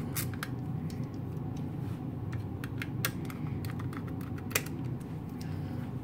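A small screwdriver fastening tiny screws through a metal drive caddy into an SSD: irregular light clicks and ticks of tool, screw and sheet metal, a cluster about two to three seconds in and one sharper click about four and a half seconds in.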